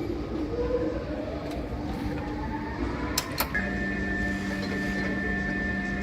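A steady mechanical hum over a low rumble, like a running engine, its pitch rising slowly early on and a new steady tone coming in suddenly about three and a half seconds in, with two sharp clicks just before.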